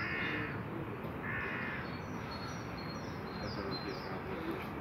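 A crow cawing twice, two harsh calls about a second apart near the start, with small birds chirping thinly and high in the background.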